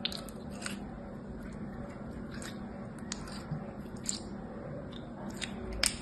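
Translucent yellow-green slime squeezed and stretched between the fingers, giving off scattered wet squishing clicks and pops, the loudest near the end.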